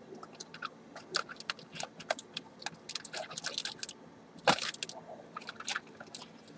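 Trading cards and their packs being handled at a table: a run of light crinkles and clicks, with a louder knock about four and a half seconds in.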